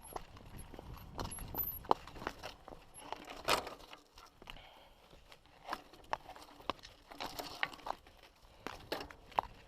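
Footsteps and irregular clicks, knocks and scrapes over rough, rocky trail ground, with one louder scrape about three and a half seconds in. A few faint high chirps come near the start.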